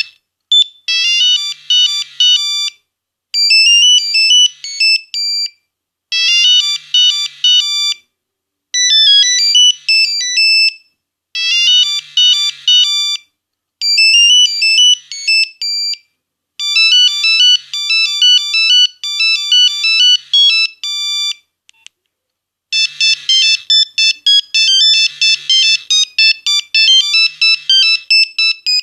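Nokia 1101 mobile phone playing its built-in monophonic ringtones through its small speaker. A short beeping melody phrase repeats every two to three seconds; after a brief pause, a different, busier tune starts for the last several seconds.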